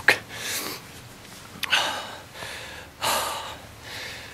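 A man breathing hard in several deep, gasping breaths, about one every second or so, worked up just after firing his shot.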